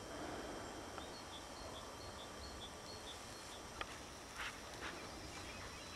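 Quiet countryside ambience: a faint high chirping repeated a few times a second in the middle, and a few short snaps and rustles of dry grass and stems as a dog moves through the cover, the sharpest about two thirds of the way in.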